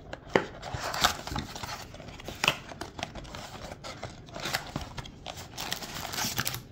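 A cardboard trading-card blaster box being torn open by hand: the flap ripped loose and pulled back, a run of tearing, rustling and scraping of paperboard with small clicks.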